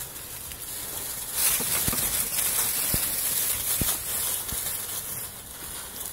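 Dry fallen leaves rustling and crunching as young puppies scamper and tumble through them, with scattered small crackles; loudest in the middle.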